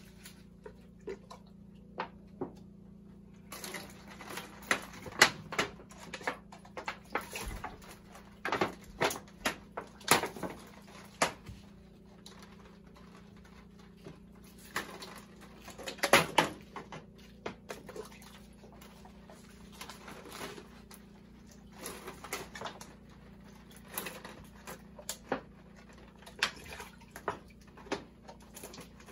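Irregular splashes and patter of bathing water, scooped from a plastic bucket and poured over the body, with the busiest splashing from about four to eleven seconds in and again around sixteen seconds.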